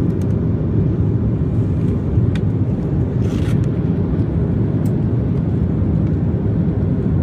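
Steady low roar of jet engines and rushing air heard inside an airliner's cabin as it climbs after takeoff, with a short hiss about three seconds in.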